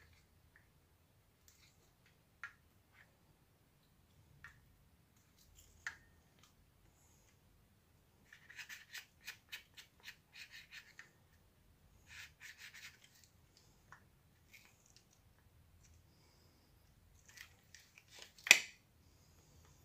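Handling noise from a partly dismantled 1995 Celma electric drill: scattered light taps and clicks, then two runs of quick rattling clicks as the chuck spindle is turned by hand and the exposed gears move, and one sharp click near the end.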